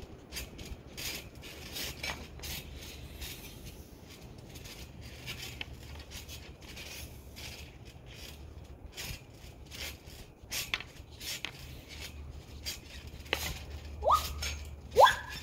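Trampoline in use: scattered light taps and clicks over a low steady rumble, then a few short rising squeaks near the end as a hockey stick and puck are worked across the mat.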